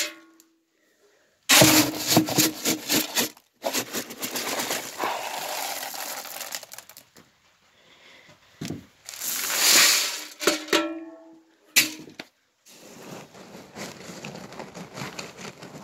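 Dry dog kibble scooped from a plastic barrel and poured into a plastic feed bucket: several rattling, pattering pours in bursts with short pauses between them, and a couple of brief ringing clinks.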